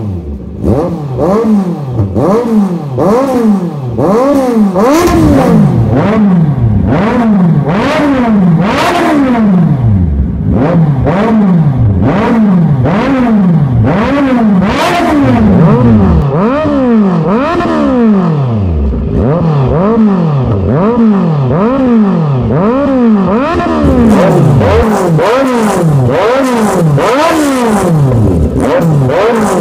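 2021 Kawasaki Z900's 948 cc inline-four, breathing through an aftermarket full exhaust system, revved in neutral with quick throttle blips about once a second, each rev rising sharply and dropping back toward idle.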